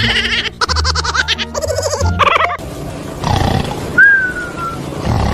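Edited soundtrack: a warbling, wobbly-pitched sound effect over a music bed for the first two and a half seconds. Then come two rough, roar-like noises, with a short falling whistle between them.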